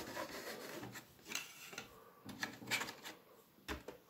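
Faint handling noises: plastic rubbing with a few light clicks and knocks as a hand works at the plastic casing of an Arctic Air personal air cooler.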